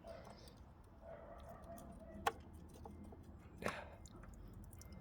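Faint handling noise from work on the fuel rail as the fuel pressure sensor is taken out, with one sharp click about two seconds in.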